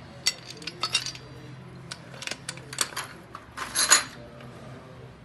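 Small metal objects clinking and rattling, a handful of sharp clinks with a longer, louder metallic clatter a little before four seconds in.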